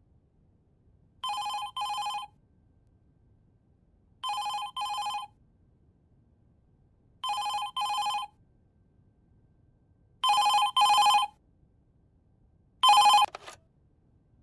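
Landline telephone ringing with an electronic double ring: four ring-rings about three seconds apart, the fourth louder. The fifth ring is cut off short near the end as the handset is picked up.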